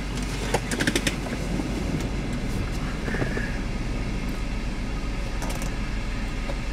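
Steady low rumble with a rushing noise of wind and a vehicle, heard from inside the car, with a few sharp clicks about a second in.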